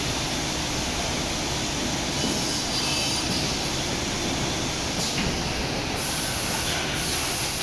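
Two-sided wood sawing and row drilling machine running: a steady mechanical noise from its motors and dust extraction, with short bursts of hiss about five and six seconds in.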